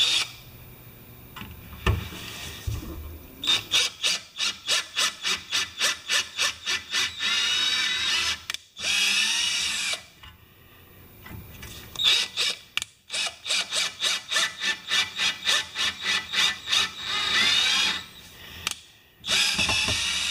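Cordless drill driving a tap to cut threads in an aluminum bar. The motor goes in quick pulses, about three or four a second, then runs steadily for a second or so; the pattern comes twice.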